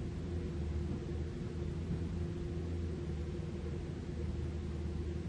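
Diesel engine of a Caterpillar 305.5E2 mini excavator running steadily, a low even hum with no breaks.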